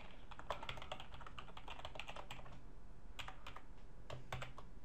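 Typing on a computer keyboard: a quick run of key clicks for the first couple of seconds, then a few scattered keystrokes.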